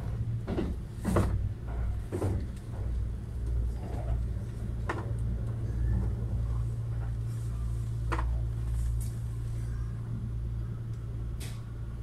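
Interior running noise of a Kintetsu 80000 series Hinotori limited express train: a steady low rumble with scattered short clicks and knocks.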